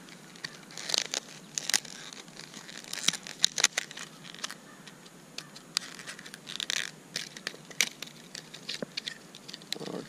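A clear plastic blister pack holding a fishing lure being torn and pried open by hand: irregular crinkling and crackling of the plastic with many sharp clicks and snaps.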